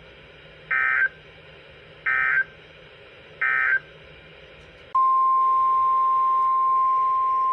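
Three short bursts of EAS SAME digital data, about a second and a half apart: the end-of-message code that closes an alert. About five seconds in, a single steady tone near 1 kHz starts: the NOAA Weather Radio 1050 Hz warning alarm tone that opens the next alert.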